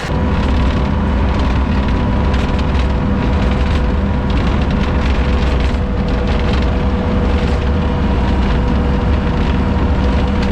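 Heavy machine's engine running steadily and loud, close up, with a steady whine over it and a rough crackle throughout.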